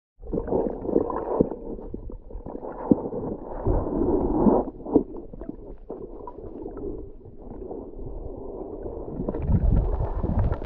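Muffled underwater sound picked up by a submerged camera: churning water from a swimmer kicking close by, with scattered clicks and knocks. It grows louder and brighter near the end as the splashing builds.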